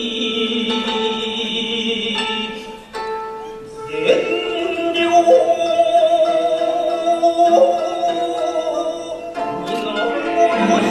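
Shigin chanting: a solo voice holding long, wavering notes of a chanted poem. The voice drops away about three seconds in, then takes up a new held phrase about a second later.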